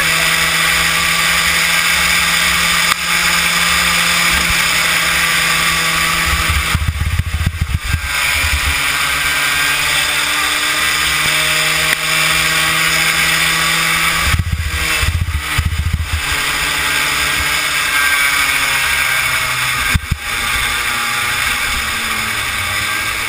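Kid kart's small engine running hard on a racing lap, its pitch dropping and climbing again several times as it slows for corners and accelerates out, with a steady rush of wind over the onboard microphone. Twice a brief low rumble breaks in over the engine.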